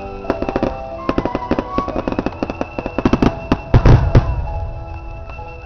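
Aerial firework shells bursting: a fast run of sharp crackling reports, with a few heavy booms close together about four seconds in. Music plays underneath.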